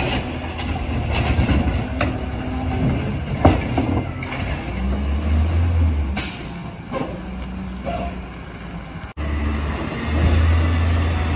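CNG-powered Peterbilt 320 garbage truck running as it drives down the street, with a few sudden knocks and rattles from the truck's body.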